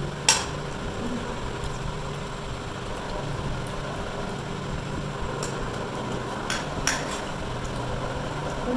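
A metal spoon clinking against a steel frying pan while eating rice: a sharp clink just after the start and a few more about two-thirds through. Underneath, the steady hum of an electric fan.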